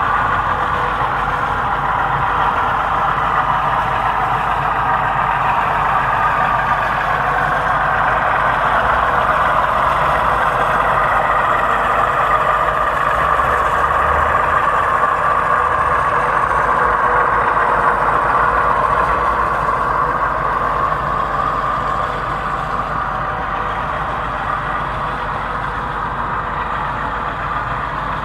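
Steady whooshing background noise that swells slightly through the middle and eases toward the end.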